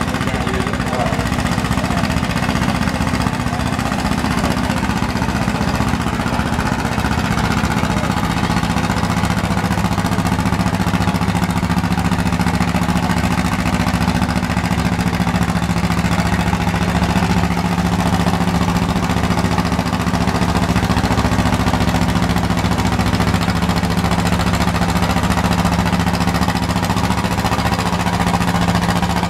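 John Deere two-cylinder tractor engine running under heavy load as it drags a weight-transfer sled, a steady, fast, even beat that holds at one pitch.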